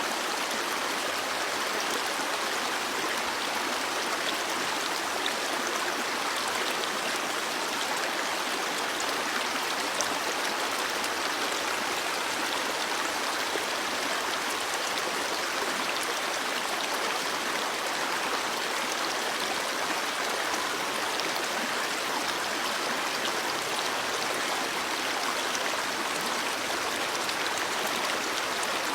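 A stream of water flowing steadily over rocks, an even rushing and babbling without change.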